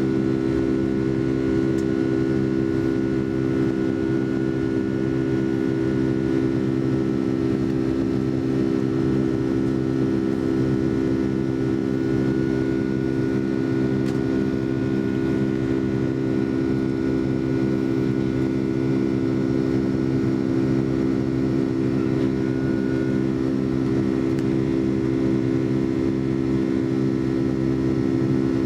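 Boeing 757-200 jet engines heard inside the passenger cabin: a loud, steady drone with a deep multi-toned hum, unchanging in pitch and level.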